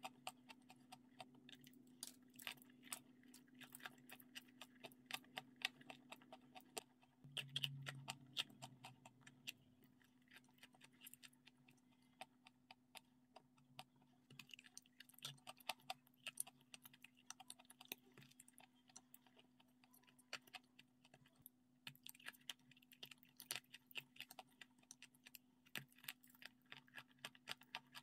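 Close-miked chewing and wet mouth sounds: many quick, irregular clicks and small crunches, faint overall, over a steady low hum.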